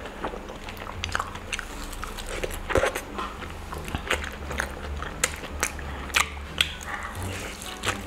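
Close-miked mukbang eating: biting and chewing, with many short sharp mouth clicks and crunches.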